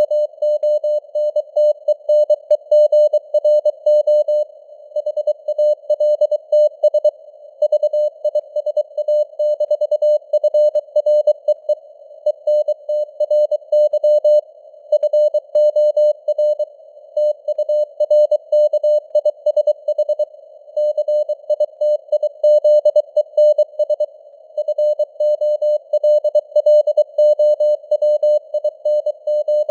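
Morse code (CW) sent at 23 words per minute: a single mid-pitched tone keyed rapidly on and off in dots and dashes, with short pauses between words. Under it runs a steady layer of simulated radio band hiss, and the signal strength varies as in QSB fading.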